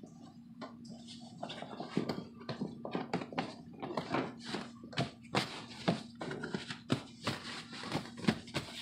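Irregular rustling, crinkling and tapping of a thin synthetic leather-look car seat cover as hands pull, smooth and tuck it over the seat's bottom cushion, over a faint steady hum.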